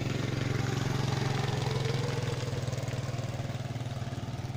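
A small engine running steadily with a low, pulsing hum, loudest a second or two in and fading slightly toward the end.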